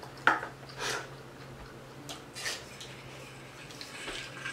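Small glass bowl being handled and set down on a wooden board: a sharp clink about a quarter second in, then a few softer knocks, over a steady low hum.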